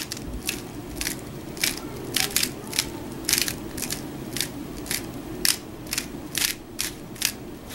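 An Aolong v2 3x3 speedcube turned fast by hand through a PLL algorithm: a string of sharp plastic clicks as the layers snap round, some coming in quick runs.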